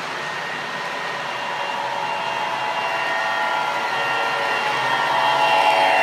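MTH O-gauge Bessemer & Lake Erie F7 model diesel set running on three-rail track: a steady whir of motor, gears and wheels with a mix of steady tones, growing louder as the train draws near and passes close by near the end.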